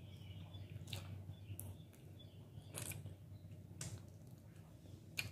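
A person eating saucy chicken curry by hand: faint wet chewing and mouth sounds with about five short, sharp lip-smacking clicks, over a steady low hum.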